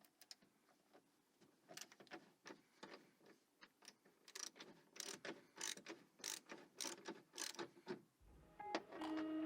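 A series of faint, sharp mechanical clicks, sparse at first and then coming about two a second from about halfway through. Background music starts near the end.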